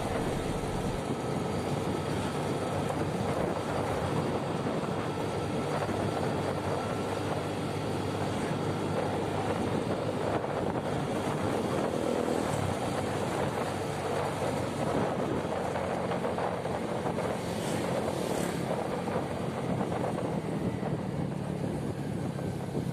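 Vehicle on the move along a road: steady engine hum mixed with road and wind noise, unchanging throughout.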